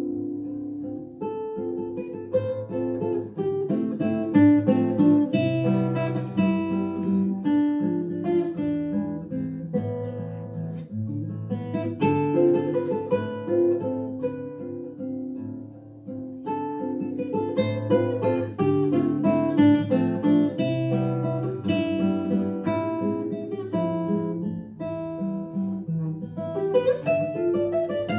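Classical guitar played solo fingerstyle: a waltz, with a plucked melody over bass notes. The playing eases off briefly about halfway through, then picks up again.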